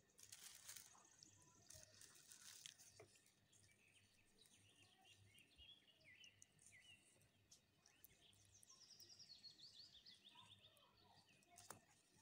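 Near silence, with faint rustling and scraping of parchment paper being handled, and faint bird chirps behind it, including a short falling trill near the end.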